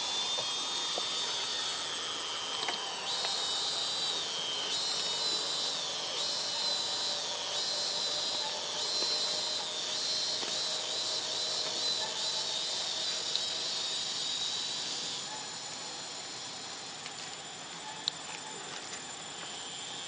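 Outdoor insect chorus: a steady, high-pitched buzzing drone that swells and wavers in pulses about once a second, then thins out about fifteen seconds in. A single sharp click comes near the end.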